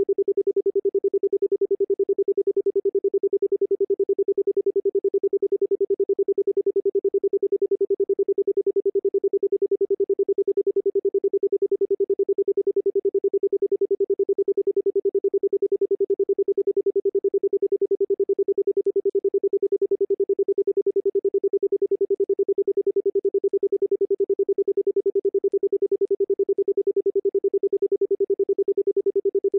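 Electronically generated pure sine tone for sound therapy, held on one steady pitch with a fast, even pulsing in loudness.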